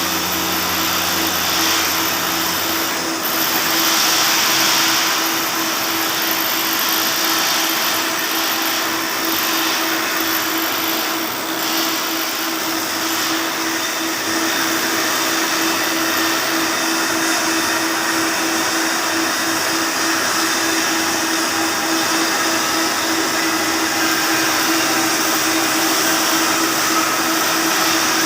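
Flux-cored arc welding with 1.2 mm flux-cored wire: the arc's steady sputtering crackle runs on without a break, over a constant low hum.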